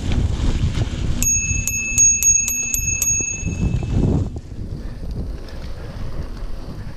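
Bicycle bell rung rapidly, about seven quick dings in two seconds starting about a second in, over a steady low rumble.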